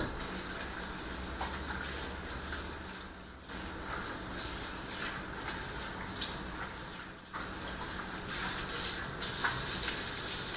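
Kitchen tap running as a body scrub is rinsed off the arms under it, the water rushing and splashing over the skin. The rushing dips briefly twice and grows louder near the end.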